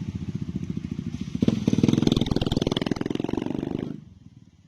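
A vehicle engine running with a rapid, even exhaust beat. It gets louder about a second and a half in, then stops abruptly near the end.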